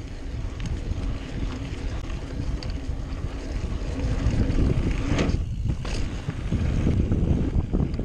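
Mountain bike riding downhill on a dry dirt trail: tyres rolling over dirt, with wind rushing over the microphone. Both grow louder as the bike picks up speed.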